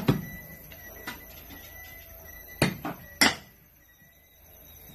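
Pickaxe blows striking into packed red clay soil while digging a trench. There are a handful of sharp strikes an irregular second or so apart, the loudest at the start and about three seconds in.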